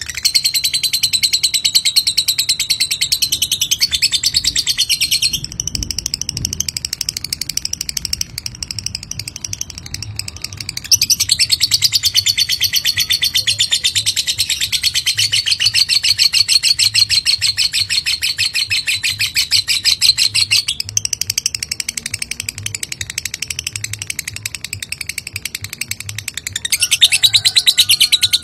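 Lovebird giving its long "ngekek" chatter: a very rapid, high rattling trill held for many seconds at a time. It is loud for the first few seconds, softer for a while, loud again for about ten seconds from a third of the way in, softer again, and loud once more near the end.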